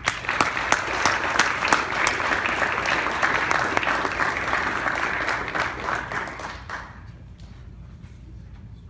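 Audience applauding, many overlapping claps that die away after about seven seconds.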